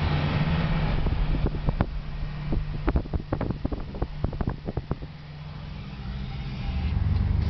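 Car driving along a paved road, heard from inside the cabin as a steady low rumble. A quick run of sharp clicks or rattles comes between about a second and a half and five seconds in, then the rumble drops briefly before picking up again near the end.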